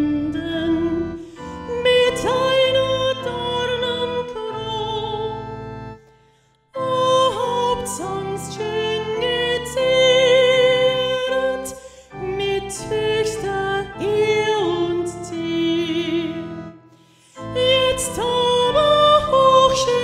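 A slow, sung sacred piece: a solo voice with vibrato over keyboard accompaniment, in long held phrases with short breaks about six and seventeen seconds in.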